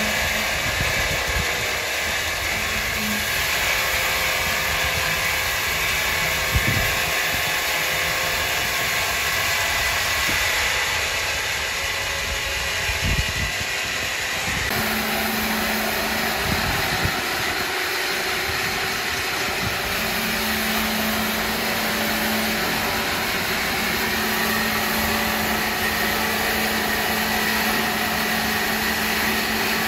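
Powered wood saw machinery running steadily, a loud whirring noise with a motor hum, broken by a couple of short knocks. The sound changes abruptly about halfway through.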